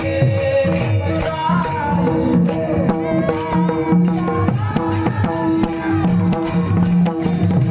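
Indian devotional bhajan music: a held melody over a steady hand-drum beat with jingling percussion.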